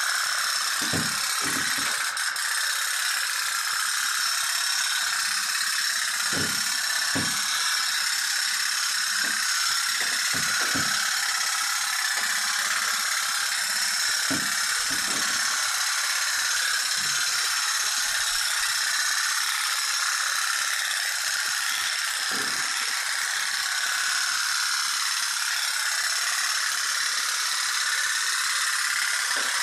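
Toy pop-pop tug boat's flame-heated steam engine running, a steady fast rattling buzz that keeps up without a break.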